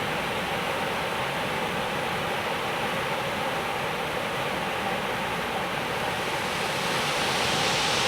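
Waterfall, its water rushing in a steady, even noise that grows slightly louder near the end.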